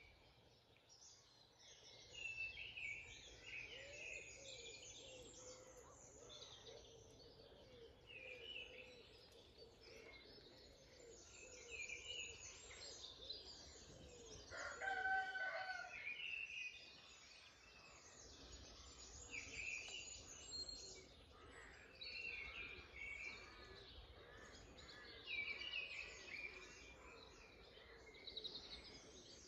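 Many songbirds singing together in a woodland morning chorus. A rooster crows once, a drawn-out call of about two seconds near the middle, the loudest sound.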